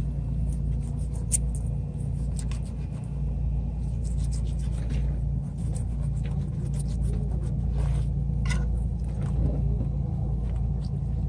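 A steady low rumble, with small scraping and tapping sounds scattered through it from a knife working on a mullet on a plastic cutting board as the fish is filleted.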